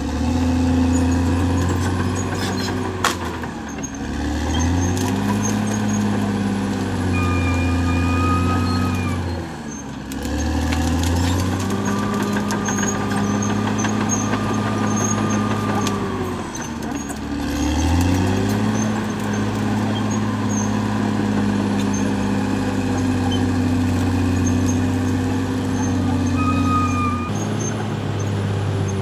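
Caterpillar D6R XL bulldozer's diesel engine working steadily under load. Its pitch sags and climbs back up several times, at about 4, 10 and 17 seconds, as the load changes.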